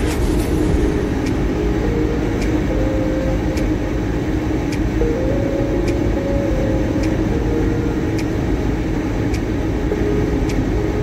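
Car cruising at highway speed, heard from inside the cabin: steady road and engine noise, with a faint tick about once a second.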